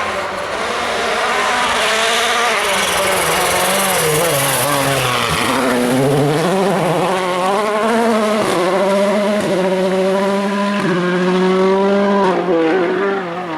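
2016 World Rally Car's turbocharged four-cylinder engine revving hard, its pitch climbing and falling through quick, sharp gear changes, with a loud rushing noise in the first few seconds; it fades near the end as the car goes away.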